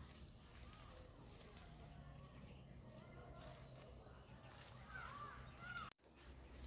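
Faint bird calls in the open air: a scatter of short chirps and whistled notes, a little louder about five seconds in.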